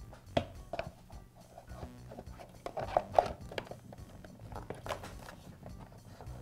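Irregular light clicks and knocks of hard plastic and metal as an air compressor's motor and pump assembly is worked back into its plastic housing, a few louder knocks around the middle.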